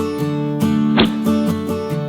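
Background music: a guitar tune of plucked notes, with one sharp percussive hit about a second in.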